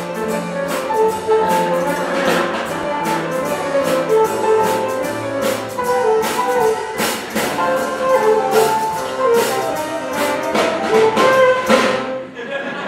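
Upbeat instrumental musical-theatre number with brass over a beat of sharp hits, accompanying a dance; it cuts off near the end.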